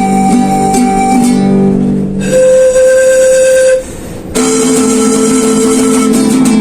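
Live instrumental music from a street musician: plucked strings under long held melody notes, dipping briefly a little past the middle before the next note comes in.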